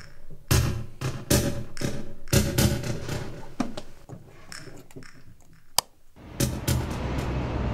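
Tense film-score music with sharp percussive hits over a held tone. It thins out, a single sharp click comes near the six-second mark, and then a steady rushing noise rises near the end.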